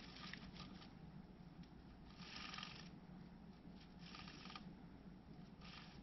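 Faint rustling of dry grass in a wren's nest, in four short bursts, the loudest a little over two seconds in, over a low steady hum.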